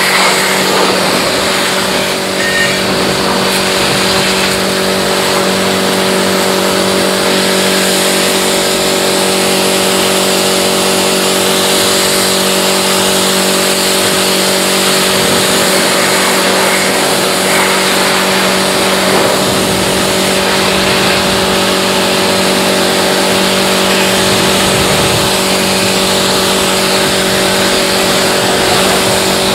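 Pressure washer running steadily: a constant motor hum under the hiss of spraying water.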